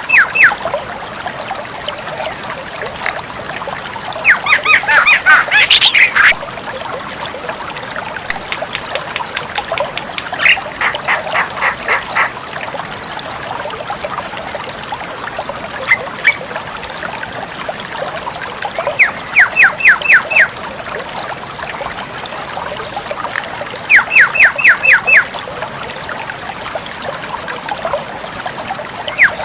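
Javan myna (jalak kebo) calling in full voice: quick runs of about six sharp, rapid notes, repeated every few seconds, over a steady background hiss.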